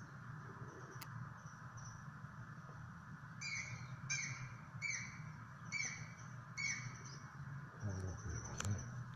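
Japanese green woodpecker (aogera) calling: a run of five clear, downward-slurred whistled notes about 0.8 s apart, beginning about three and a half seconds in. A steady low hum lies underneath, and there are a couple of sharp clicks.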